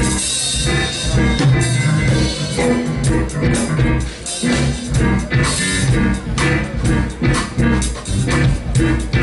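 A live jazz band playing through a PA: keyboard, guitar, bass guitar and drum kit, with sharp drum hits from about three seconds in.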